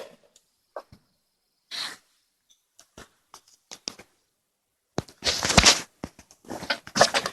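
Brown bear making short breathy sounds and scattered clicks, sparse at first, then a denser run of louder rough bursts about five seconds in.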